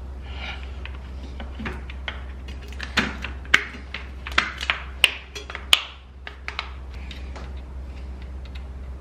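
Sharp clicks and clacks of small parts and wires being handled, as the spade-terminal connectors are pulled apart. A quick run of loud clicks falls about three to six seconds in, over a steady low hum.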